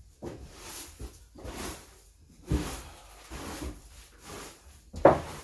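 Repeated rustling, scraping strokes of old hay being cleared from a barn floor, with a sharp knock about two and a half seconds in and a louder one near the end.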